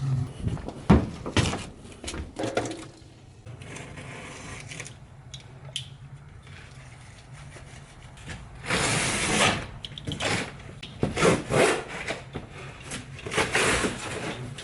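Things being handled and slid about: a string of short scraping and rubbing sounds with a few knocks, the loudest scrape about nine seconds in.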